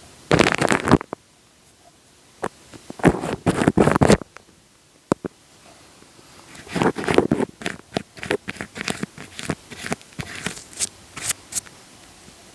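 Wet, sticky sounds made close on a microphone, crackling in bursts: one of about a second near the start, a longer stretch around three to four seconds in, then a run of short quick bursts through the second half.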